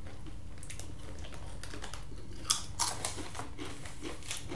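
Foil Doritos chip bag crinkling as it is handled, with a couple of sharper crackles about two and a half seconds in.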